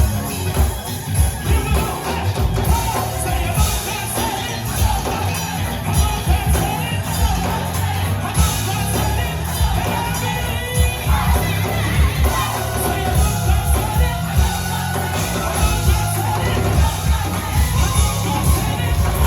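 Live gospel choir singing with a band, drums and bass keeping a steady beat.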